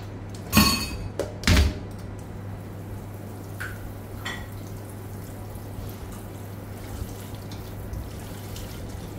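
Two loud metallic clanks about a second apart as a stainless steel pot is set down in the sink, then tap water running steadily into the pot while diced pomelo pith is squeezed and rinsed in it by hand.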